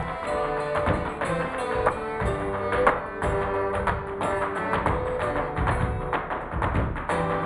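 Live folk band playing a lively tune on flute, squeezebox and guitar, with tap shoes striking a wooden stage in quick rhythm over the music.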